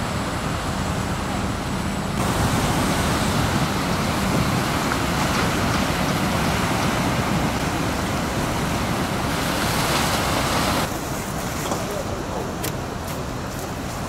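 Heavy surf from typhoon swell: a steady rushing of breaking waves, a little louder from about two seconds in and softer from about eleven seconds in, with a few sharp clicks near the end.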